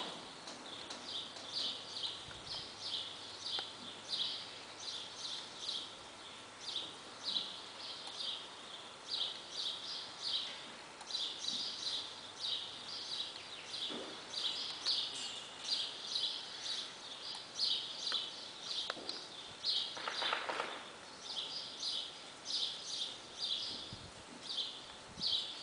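Small birds chirping over and over in quick, high, repeated notes.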